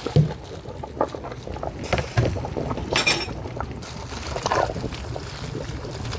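A pot of soup bubbling with a steady low rumble while a metal ladle pushes cabbage leaves down into the broth, giving a few short clinks and splashes, the loudest about three seconds in.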